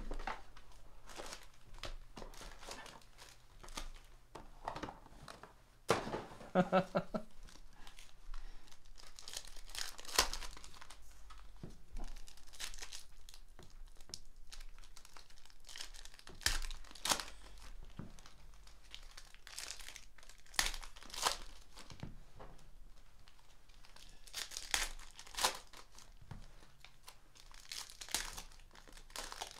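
Foil wrappers of Panini Prizm basketball card packs being torn open and crinkled by hand, with irregular crackling rustles throughout.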